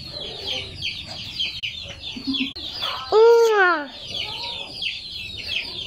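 Chickens clucking and peeping almost without a break, many short high chirps overlapping, as the flock waits to be fed. About three seconds in comes one louder drawn-out call that rises and then falls.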